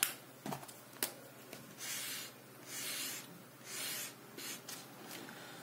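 A felt-tip highlighter is drawn across paper in three long strokes about a second apart, after a couple of sharp clicks near the start.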